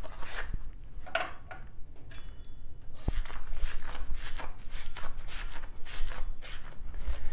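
Scraping strokes as the inside of a brass shower-valve fitting is scoured clean before soldering. The strokes repeat about two to three times a second, with a sharp click about three seconds in.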